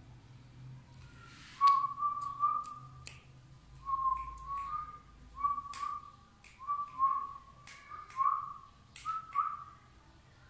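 Whistling: a string of short whistled notes at nearly one pitch, many with a slight upward curl at the end, starting about a second and a half in, with sharp clicks between them.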